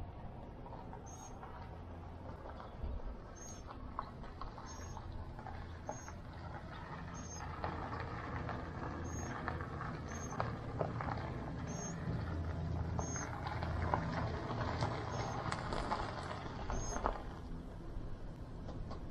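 Ground squirrel giving short, high chirps about once a second, over a steady low rumble with some rustling and small clicks.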